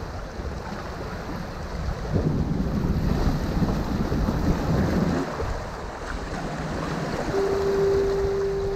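Waves washing against the jetty rocks, with wind buffeting the microphone and a louder surge a couple of seconds in. Near the end a foghorn sounds one steady note.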